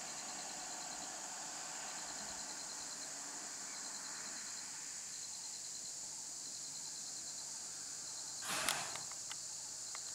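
Steady chorus of insects, with a rapid pulsing chirp repeating in short runs about once a second over a constant high hiss. A brief, sharp noisy burst about eight and a half seconds in is the loudest moment, followed by a couple of faint clicks.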